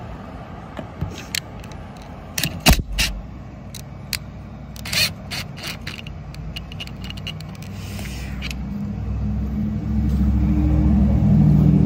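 A few sharp clicks and knocks, then a motor vehicle's engine rumbling, growing louder over the last few seconds.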